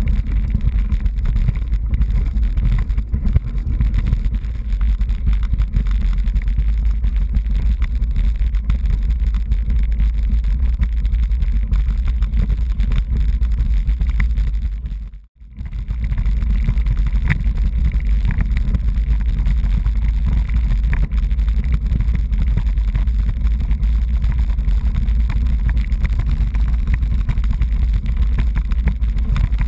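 Steady low rumble of wind buffeting and road vibration on a bike-mounted action camera, riding a road bike over cobblestones. It cuts out briefly about halfway through, then carries on the same.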